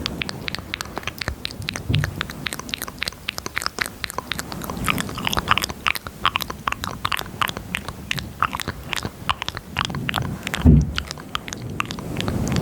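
ASMR mouth sounds made close to a high-gain microphone: a quick, uneven stream of wet clicks and smacks, several a second. A single louder low thump comes near the end.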